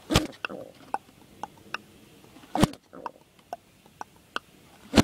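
White pigeon on its nest striking at a hand reaching in to defend the nest. Two loud sharp slaps, the first just after the start and the second about two and a half seconds later, with lighter clicks and short low grunts between them.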